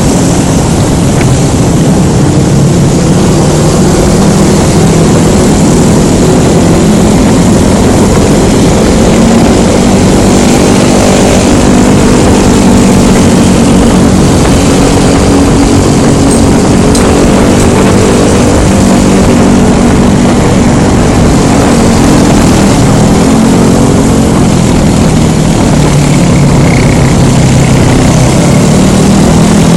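Honda Scoopy scooter's single-cylinder four-stroke engine running on the road, its pitch rising and falling with the throttle. It is heard through a helmet-mounted phone microphone under heavy, loud wind rumble.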